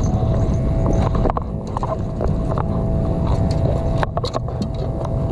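Boat engine running steadily as a low rumble with a faint steady hum, with a few sharp clicks scattered through, most of them about four seconds in.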